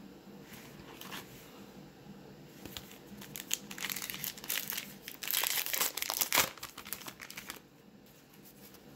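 A 2020 Topps Heritage baseball card pack being torn open by hand, its wrapper crinkling and ripping. The crackling starts about three seconds in, is loudest a little past the middle, and stops a second or so before the end.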